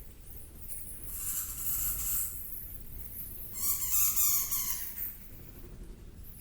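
Two high-pitched animal calls: a raspy, hissy screech about a second in, then a louder pitched squealing call that falls slightly in pitch, over a steady low rumble.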